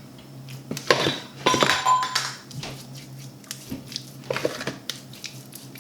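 A utensil clinking against a bowl several times as meat is mixed with a spice marinade paste; one clink rings on briefly about one and a half seconds in.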